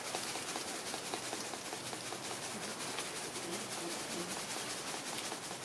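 Steady high background hiss with many faint scattered ticks and a few short, soft tones a little past the middle.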